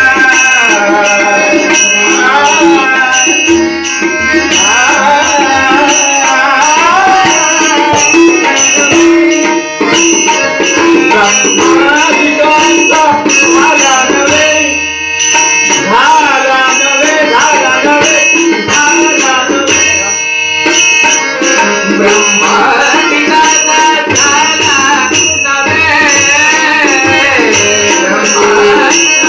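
Devotional bhajan played live: a man singing over a harmonium's held reed chords, with small hand cymbals (manjira) struck in a steady rhythm and a hand drum keeping time.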